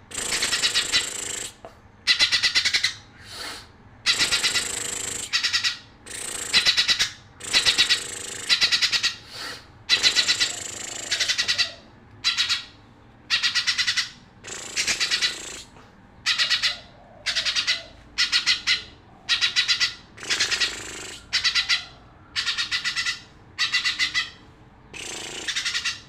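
Green leafbird (cucak ijo) singing in a long run of short, loud, rapidly pulsed chattering phrases, about one every second or so with brief pauses between.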